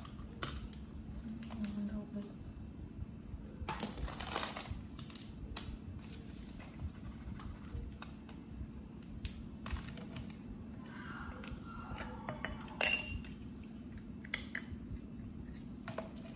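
Scattered light clicks, taps and brief rustling, as of small objects being handled, over a steady low hum; a longer rustle about four seconds in.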